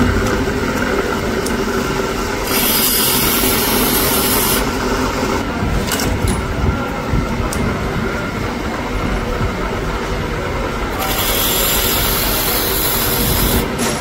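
Valve-grinding machine running steadily as a motorcycle engine valve is ground against its spinning abrasive wheel. A high grinding hiss comes in twice, for about two seconds each time, about two seconds in and again about eleven seconds in, with a few sharp clicks between them.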